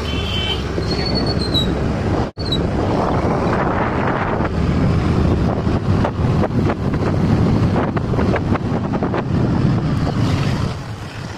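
Wind buffeting the microphone on a moving two-wheeler, over the engine and road noise. A horn toots briefly at the very start, and the sound drops out for an instant about two seconds in.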